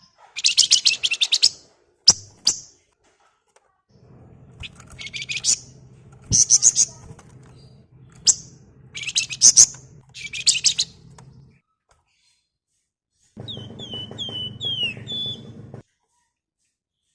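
A flock of Javan wergan (spotted crocias) calling in bursts of fast, rattling chatter. Near the end comes a run of short, down-slurred whistled notes, with a low hum behind parts of the recording.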